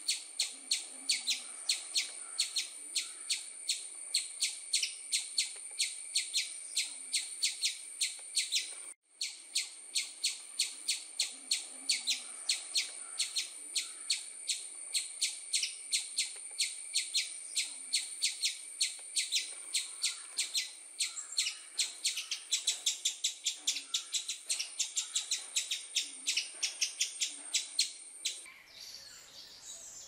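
Small songbird chirping rapidly and repeatedly, several sharp high chirps a second in an even run. It breaks off for an instant about nine seconds in and resumes, then gives way near the end to softer, scattered bird calls.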